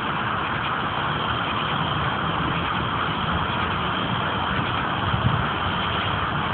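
Steady car engine and road noise, an even rumble with no distinct events.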